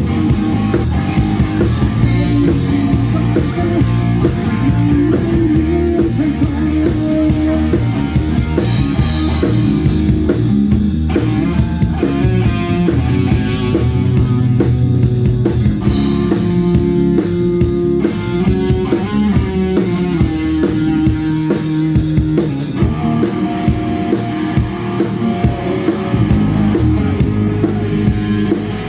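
A rock band playing live through an amplified rig, with drum kit and guitars; a quick, steady high tick from the drums comes in near the end.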